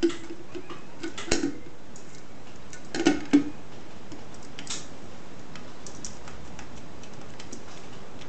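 Scattered light clicks and knocks of a glass light shade handled and set into the metal fitter of a ceiling fan light kit, the loudest pair about three seconds in, over a steady background hiss.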